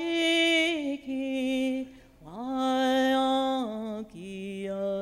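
A woman singing a Lakota Sundance morning-star song unaccompanied, in long held notes with a slight waver. Each phrase steps down to a lower note, with a short breath break about two seconds in and a new phrase starting near the end.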